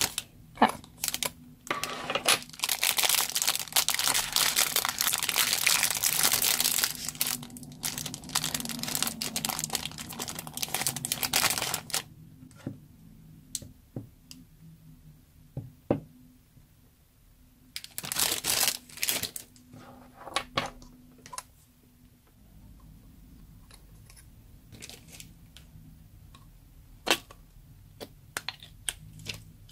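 Cellophane packet crinkling and tearing as it is opened by hand, a dense crackle for about ten seconds. Then scattered light clicks and taps, with another short crinkle in the middle.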